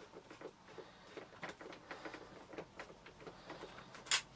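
Screwdriver undoing a screw from the plastic housing of a Vax Mach Air vacuum cleaner: a run of faint small clicks and ticks, with one sharper click near the end.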